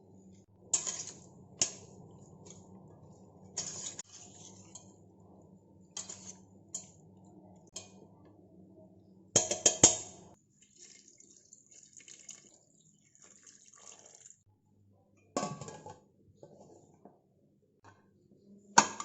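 Kitchen utensils and cookware clinking and knocking now and then, with the loudest cluster of clatter about halfway through. A low steady hum runs underneath for the first half and then stops.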